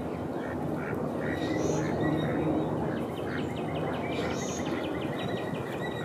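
Mallard duck calling, over a steady low background rumble.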